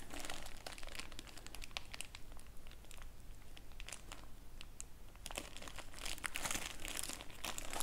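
Small clear plastic parts bag crinkling as it is handled and turned over, a run of light crackles that grows busier about five seconds in.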